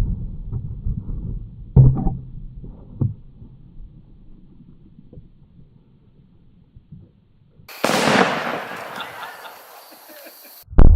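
Blast from an exploding arrow tip striking a foam target, dying away in a low rumble, with two sharp thumps about two and three seconds in. Near the end a loud rushing hiss starts suddenly and cuts off after about three seconds.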